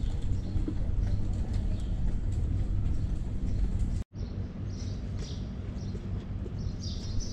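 Street ambience: a steady low rumble with faint clatter, cutting out for a moment about four seconds in; after that, small birds chirp repeatedly in short high notes.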